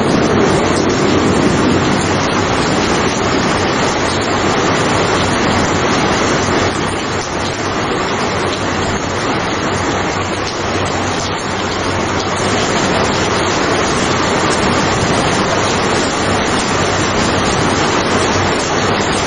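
Steady heavy rain, a dense even hiss, with a low rumble easing off in the first couple of seconds.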